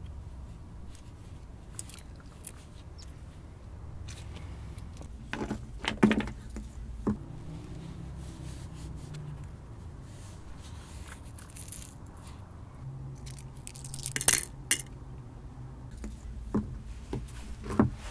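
Pomegranate being picked apart by hand: scattered crackles, scrapes and small snaps as the rind is broken and the seeds are pried loose. The loudest clusters come about six seconds in and around fourteen seconds, with a few more snaps near the end.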